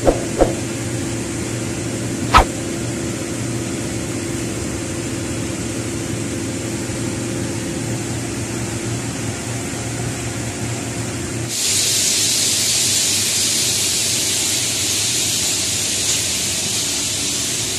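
Steady mechanical hum of a paint spray booth's ventilation, with a couple of sharp clicks near the start. About two-thirds of the way through, it cuts off abruptly into a steady high hiss.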